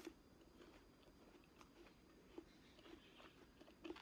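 Faint sounds of a person biting and chewing pieces of fresh fruit, with irregular small mouth clicks; the loudest comes right at the start as she bites.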